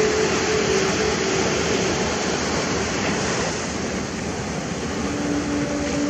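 Sea waves washing onto a sandy shore, a steady rushing surf. A faint steady hum lies underneath; it fades about a second in, and another starts near the end.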